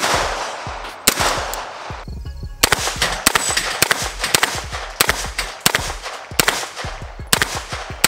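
Sig Sauer MPX 9mm pistol-caliber carbine fired in a string of sharp shots. There is one shot at the start and another about a second in, then a quicker irregular run of shots, one to two a second, with smaller cracks between them.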